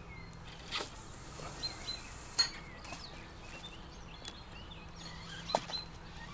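Feeder cast: the line hisses off the spinning reel's spool for about a second and stops with a sharp snap as it hits the line clip. Another sharp click comes a few seconds later, with small birds chirping.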